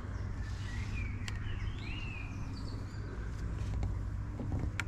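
Outdoor background: birds give a few short calls that glide up and down in pitch, over a steady low hum, with a couple of sharp clicks.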